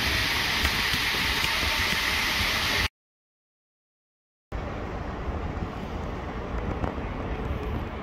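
Water from a stepped cascade fountain running down its steps, a steady splashing rush that cuts off about three seconds in. After a second and a half of silence, a quieter, steady low background rumble follows.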